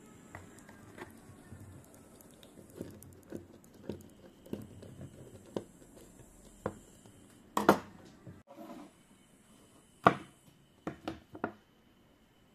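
Screwdriver turning the cover screws of a 3.5-inch hard drive's metal case: a string of small ticks and creaks, then several sharp metallic clicks near the end as the cover is taken off.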